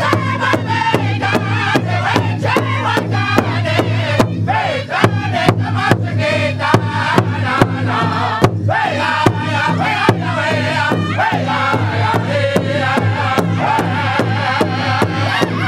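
A northern-style pow wow drum group singing loudly in unison around one large hand drum, which they strike together in a steady beat of about two and a half strokes a second.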